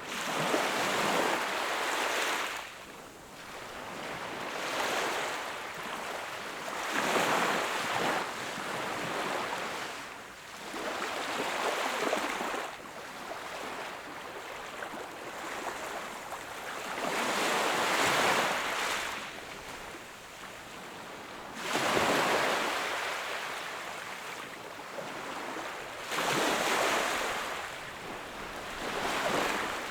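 Sea waves breaking and washing up on a beach, one surge every few seconds, rising and falling.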